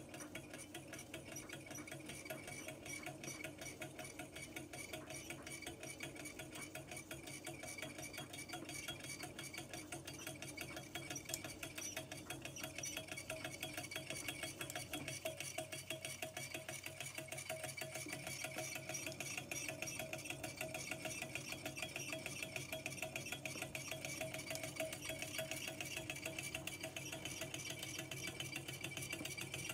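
Small low-temperature-difference Stirling engine running on the heat of a mug of tea, its flywheel turning and its linkage clicking in a fast, even rhythm.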